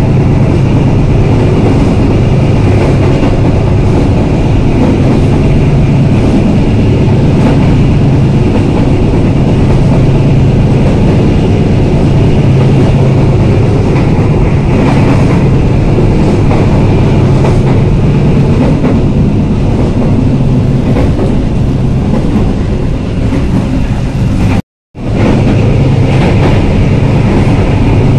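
Passenger train running along the track, heard from on board: a loud, steady rumble of wheels on rails. The sound cuts out for a moment near the end.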